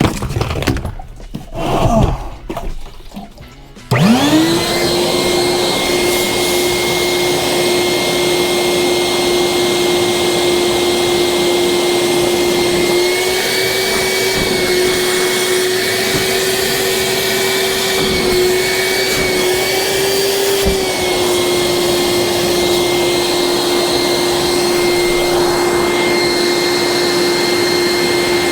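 Wet/dry shop vacuum switched on about four seconds in, its motor spinning up quickly to a steady whine and running on as it vacuums up drain water. Its pitch wavers a little higher for several seconds in the middle before settling back. A few knocks from handling come before it starts.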